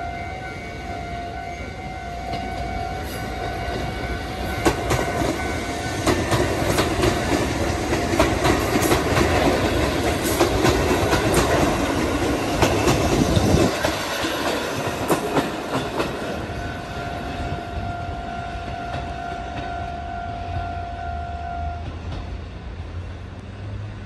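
Japanese level-crossing warning bell ringing steadily while a Kotoden (Takamatsu-Kotohira Electric Railroad) Kotohira Line electric train passes close by. The wheels clack over the rail joints, loudest about halfway through. The crossing bell cuts off a couple of seconds before the end.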